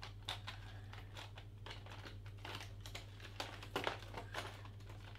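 Packaging crinkling and rustling, with irregular small clicks and taps, as a small light-sensor module is unwrapped and handled. A steady low hum runs underneath.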